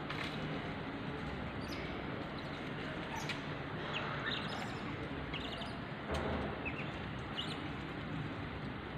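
Scattered short, high bird chirps over a steady background hiss.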